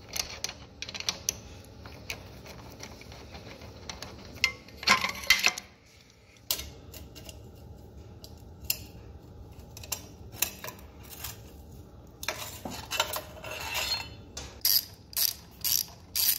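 Metal hand tools clinking against the bike and each other, with a socket ratchet clicking in a quick run of strokes near the end as the exhaust bolts of a 1980 Honda Hawk 400 are worked loose.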